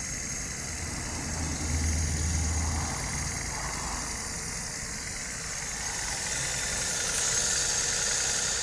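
Chevrolet Onix engine idling steadily, with a knocking in the engine that the owner says is plainly there, the fault he is recording.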